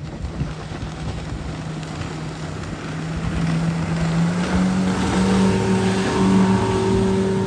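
Suzuki 115-horsepower four-stroke outboard running at planing speed as the center-console boat passes, its drone growing louder and rising slightly in pitch after about three seconds, over the rush of water off the hull.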